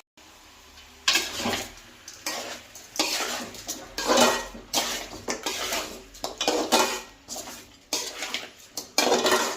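A spoon stirring chicken pieces and spice powders around a pan, scraping the pan in a run of irregular strokes.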